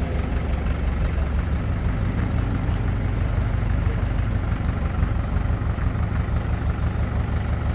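Truck engine idling, a steady low running sound that holds unchanged throughout.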